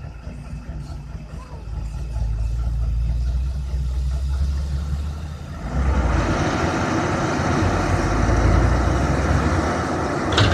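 Heavy diesel machinery engine running with a low rumble that grows louder about two seconds in. From about six seconds a louder rushing noise joins it, and there is one sharp clank near the end.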